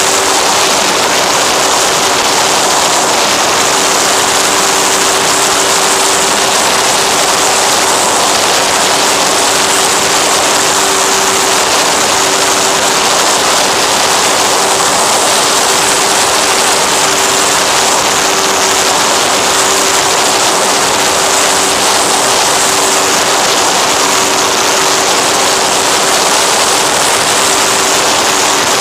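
Electric motor and propeller of an FX-79 flying-wing model plane running at a steady throttle, heard as a constant hum over loud, even rushing airflow noise on the onboard camera.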